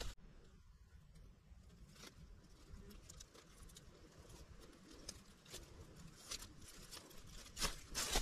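Faint rustling and crackling of dry sticks and leaf litter as paracord is wrapped and pulled tight around a bundle of branches, getting busier over the last few seconds with a few sharper cracks near the end.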